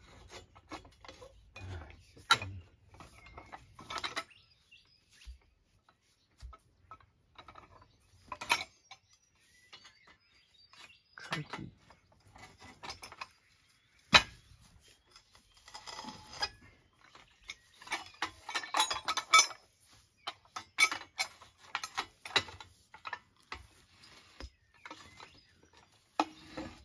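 Steel T-post puller being worked on a star picket: irregular metallic clanks, clicks and scraping as the lever handle is pumped and the steel post is drawn up out of the ground, with a few sharp loud clanks.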